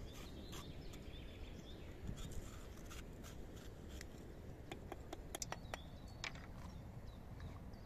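Kitchen knife cutting a yellow bell pepper held in the hand: a run of crisp clicks and snaps as the blade goes through the flesh, loudest about five seconds in, over faint steady low background noise.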